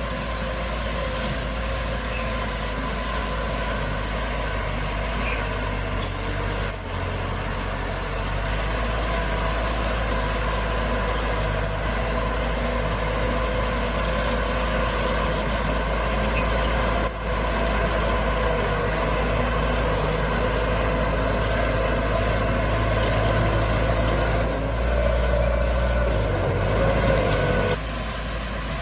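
Heavy diesel engine of earthmoving machinery running steadily under load, with a deep rumble and a steady whine, and a few sharp knocks. The sound changes abruptly shortly before the end.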